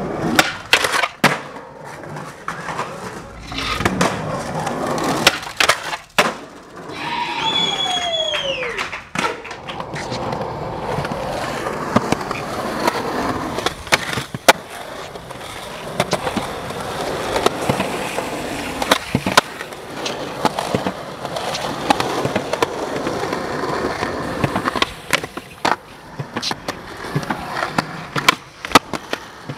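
Skateboard wheels rolling on concrete, broken by many sharp clacks of tail pops and landings and scraping grinds on ledges. About seven seconds in a short falling yell rises above the rolling.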